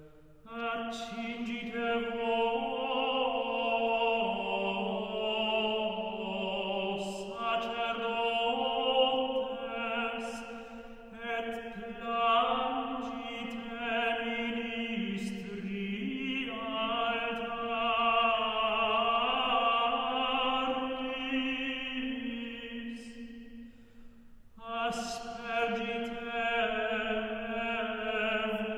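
Gregorian chant: a responsory for the Passion sung unaccompanied in long phrases, with short breaks between phrases about eleven and twenty-four seconds in.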